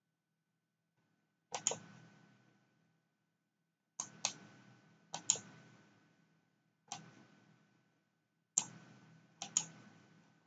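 Computer mouse button clicks: about seven short, sharp clicks, several coming in quick pairs, spaced out with near silence between.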